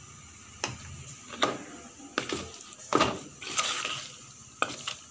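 Plastic spoon stirring paneer cubes in thick batter, knocking and scraping against a plastic mixing bowl in a string of irregular clacks and short scrapes.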